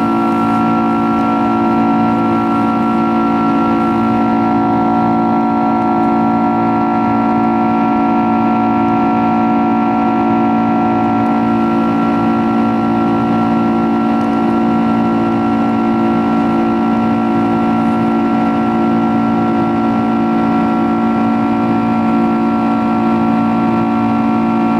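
Boeing 767-300ER's Rolls-Royce RB211-524H turbofan heard from inside the cabin in the climb after takeoff: a steady drone with several held whining tones over the rush of air, unchanging throughout.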